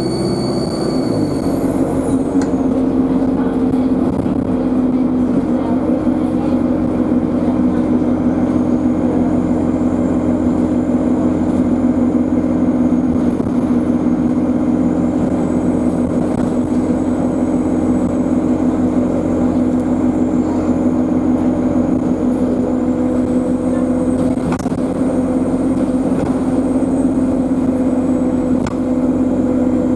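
Alexander Dennis Enviro200 bus driving along, its diesel engine droning steadily under a high turbocharger whine that rises and falls with engine speed. A higher-pitched whine dies away about two seconds in.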